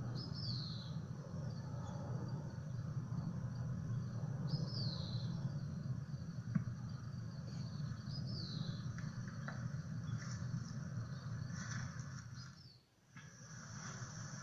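A bird's call: a short high note sliding downward, repeated about every four seconds, over a steady insect-like drone and a low hum. The sound drops out briefly near the end and then starts again.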